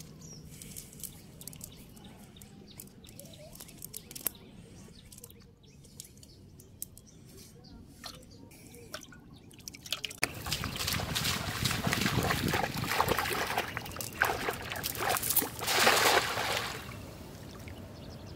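Small fish and shrimp splashing in a shallow metal basin of water, with dripping and sloshing. Scattered faint drips and ticks at first; about halfway the splashing turns loud and busy, then dies down shortly before the end.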